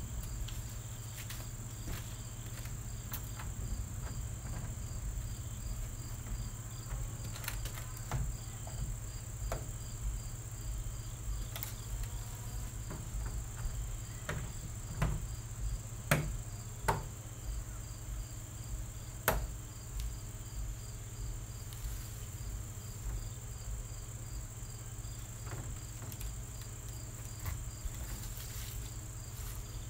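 Scattered knocks and clicks of hard plastic parts being handled and fitted together while a plastic storage chest is assembled, with three sharper knocks in the middle. Behind them run a steady high-pitched chirring with a faint regular pulse and a low hum.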